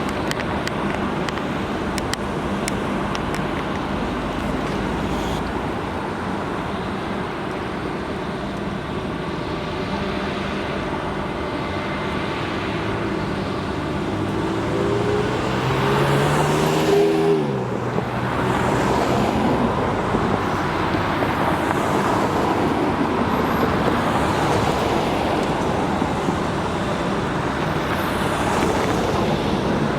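Steady road traffic. About halfway through, one vehicle's engine passes close by, rising as it approaches and then dropping sharply in pitch as it goes past.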